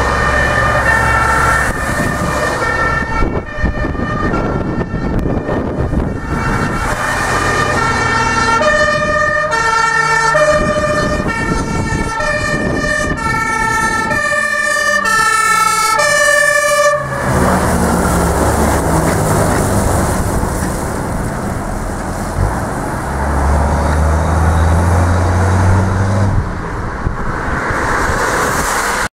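German fire engines' two-tone sirens (Martinshorn) sounding, switching steadily between a high and a low note, with the pitch shifting as the trucks pass. After about seventeen seconds the sirens give way to the low rumble of a heavy truck engine and a steady hiss of tyres and wind on a wet road.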